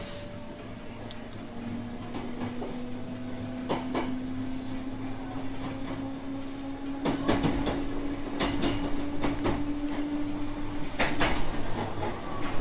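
JR West 221 series electric train heard from on board as it picks up speed: a steady hum from the running gear rises slowly in pitch and grows louder, then stops near the end, with knocks and clacks from the wheels coming more often toward the end.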